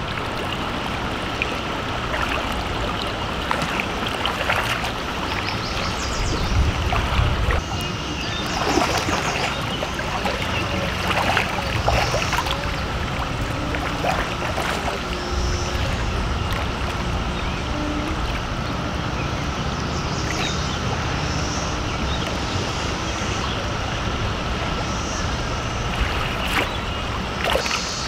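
River current rushing steadily around a wading angler, with occasional splashes as a hooked trout is played and netted. A steady high drone of periodical (17-year) cicadas runs underneath.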